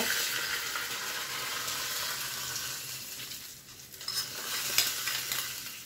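Hot tempering oil with mustard seeds, cumin, sesame and green chilli sizzling as it is poured over a steamed besan dhokla. The hissing fades after about three seconds, and a few light clicks follow near the end.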